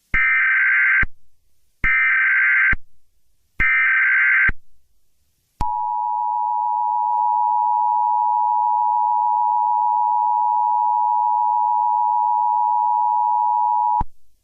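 Emergency Alert System signal: three SAME header data bursts, about a second each with short gaps between them, then the steady two-tone EAS attention signal held for about eight seconds before it cuts off abruptly. This is the start of an emergency alert, just ahead of the spoken message.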